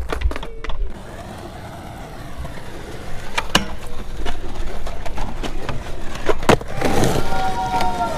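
Skateboard wheels rolling on pavement, with several sharp clacks of the board hitting the ground and a metal rail, and a ringing tone near the end.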